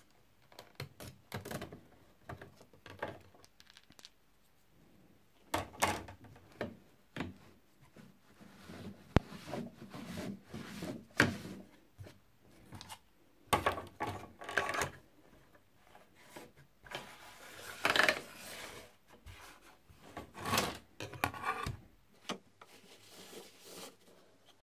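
Laser-cut acrylic spirograph gears being handled on a wooden board: irregular clacks and taps of plastic on plastic and wood, with sliding scrapes as a large gear is lifted out and a smaller one is set into the toothed ring.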